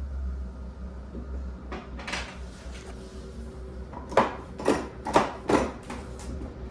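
A run of sharp clacks and knocks, about half a dozen, that grow louder in the second half, over a steady low hum.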